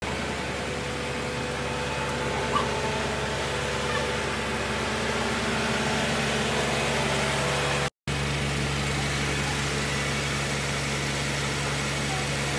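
XCMG QY25K5-I truck crane's diesel engine running steadily with a low, even hum. The sound cuts out for an instant about eight seconds in, then carries on.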